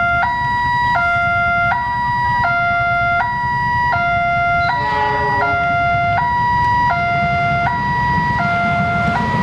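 Two-tone electronic level-crossing alarm sounding a steady hi-lo signal, switching pitch about every three-quarters of a second, warning of an approaching train. A low rumble runs underneath.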